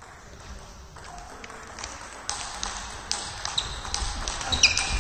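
Table tennis rally: the celluloid ball clicking off bats and table a couple of times a second from about two seconds in, echoing in a sports hall. Sports shoes squeak on the hall floor near the end.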